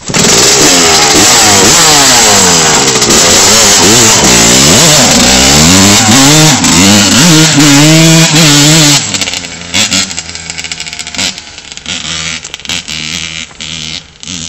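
1984 Honda CR125's two-stroke single-cylinder engine running on its first start after a rebuild, revved up and down over and over. About nine seconds in it drops sharply to a much quieter, uneven sound with scattered knocks.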